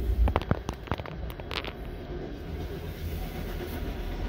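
Freight cars of a passing train rolling over the crossing: a steady low rumble of wheels on rail, with a quick run of sharp clanks and clicks in the first couple of seconds.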